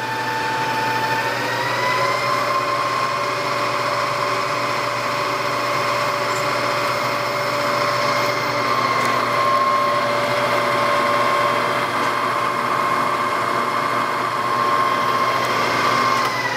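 Bridgeport Series 1 2 hp vari-speed milling head running under a ProtoTrak program, a steady motor-and-belt whine over a low hum that rises slightly in pitch a second or two in and then holds.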